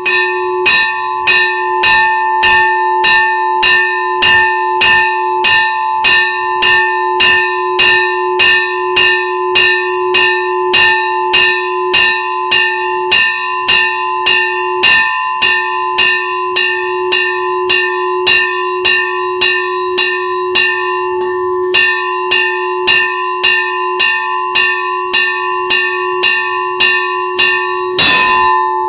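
Temple bell struck rapidly and steadily, about two strikes a second, each strike ringing on into the next. A brief noisy crash near the end.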